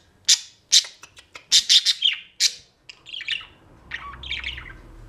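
Budgerigars calling: a quick run of short, sharp high chirps for the first two and a half seconds, then softer chattering.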